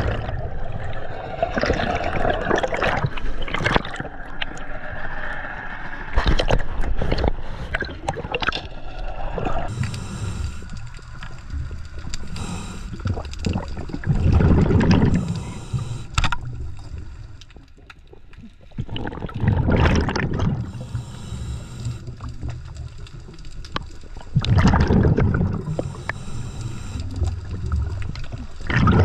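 Scuba diver's regulator breathing heard underwater: loud bubbling rumbles of exhaled air about every five seconds, with quieter stretches between. It opens with a rush of bubbles as the diver enters the water.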